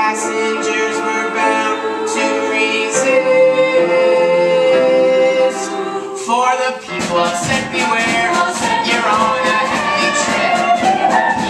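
Live musical-theatre number: voices hold a long sustained chord over accompaniment, then about seven seconds in the band and ensemble come in with a fast, driving beat.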